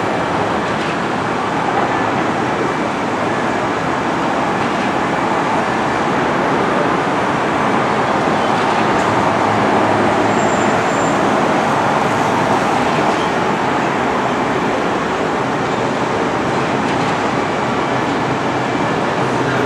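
Steady rolling noise of a moving train.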